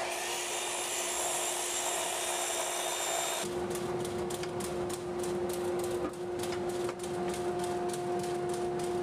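Makita miter saw running and cutting through a thick wooden post, a dense high hiss with a thin whine, for about the first three and a half seconds before cutting off abruptly. A steady droning tone carries on after it.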